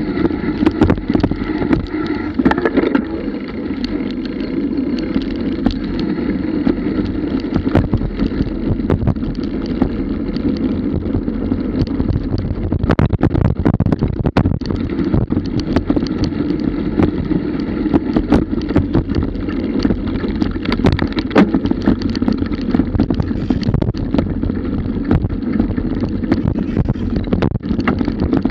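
Wind rushing over an action camera's microphone on a bike ridden fast over a rough grass and dirt trail, with frequent rattles and knocks as the bike jolts over bumps.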